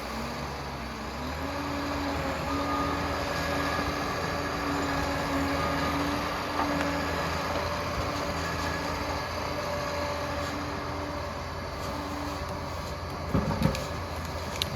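Liebherr PR 746 crawler dozer at work: its diesel engine runs with a steady drone over a rattling mechanical noise. A few sharp clanks come near the end.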